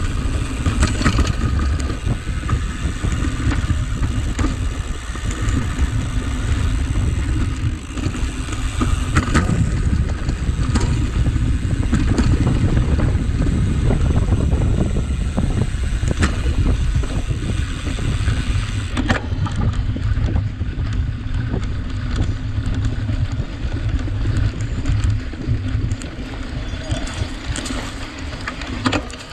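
Riding noise from a cyclocross bike racing over dry, rough ground: wind buffeting the microphone, with tyre rumble and scattered rattling knocks as the bike jolts over bumps.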